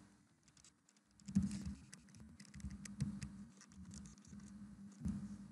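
Typing on a computer keyboard: scattered, irregular key clicks and taps that begin about a second in, over a faint low hum.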